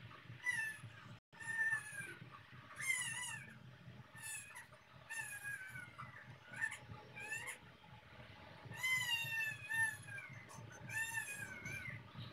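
Repeated short, high animal calls, about a dozen, most falling in pitch, over a faint low hum.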